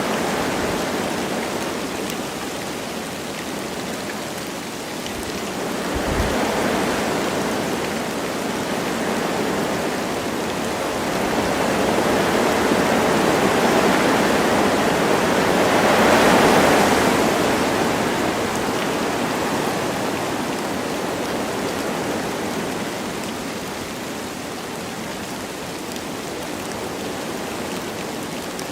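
Wind gusting through forest trees with light rain falling. The rush swells to its loudest about halfway through, then eases off.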